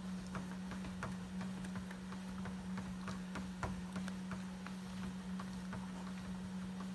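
Husky's claws clicking irregularly on a moving treadmill belt as it walks, over the steady hum of the treadmill motor.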